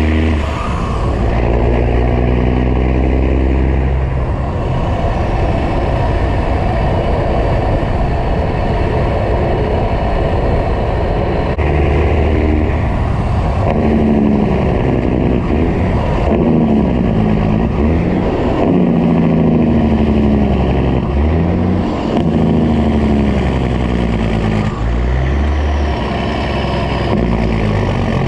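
Kenworth semi-truck's diesel engine running under way, its note climbing and dropping back several times as it pulls through the gears.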